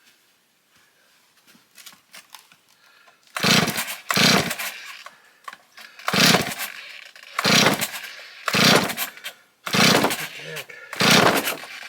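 Stihl 024 two-stroke chainsaw being pull-started: about seven hard yanks on the starter cord, roughly one a second, each a short burst of cranking, and the engine does not catch.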